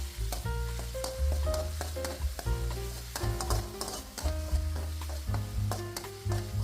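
Food sizzling in a frying pan while a spatula stirs it, with short scraping clicks throughout, under light background piano music.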